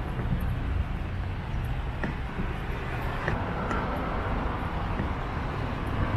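Steady city street traffic noise on wet roads: a continuous low rumble with a hiss over it, and a few faint ticks.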